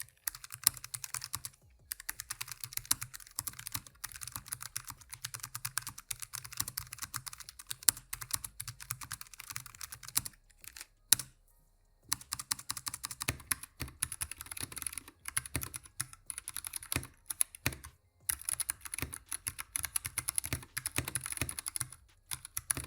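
Typing sound test of a Logitech G815 mechanical keyboard with low-profile GL Tactile switches: a fast, continuous clatter of keystrokes, broken by short pauses and one longer stop of about a second and a half around the middle.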